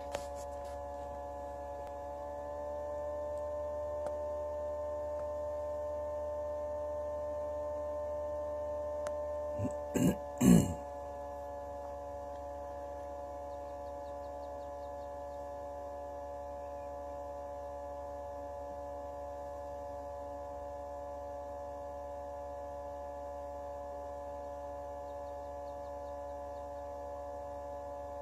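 Steady electric hum of an egg incubator's motor, several pitched tones held level; a second, slightly higher hum joins for several seconds early on and stops. About ten seconds in come a few sharp knocks, the last the loudest.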